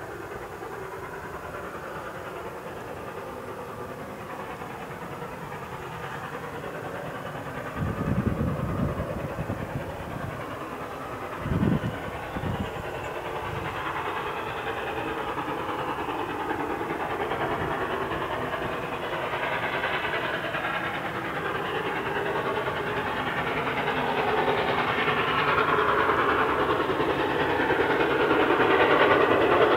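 Steam-hauled train approaching, its sound growing steadily louder, with two short low thuds about eight and twelve seconds in.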